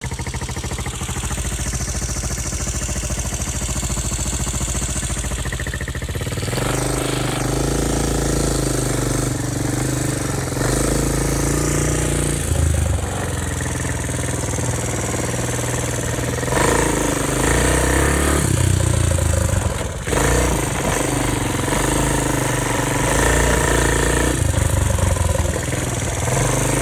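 ATV engine running steadily at first, then revved again and again as the quad is ridden, the engine note rising and falling.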